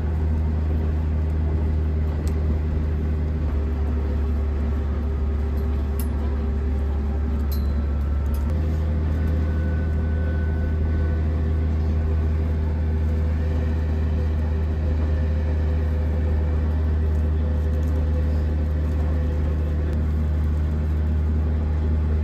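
Steady low drone of a diesel railcar's engine heard inside the passenger car, its tone changing slightly about eight seconds in.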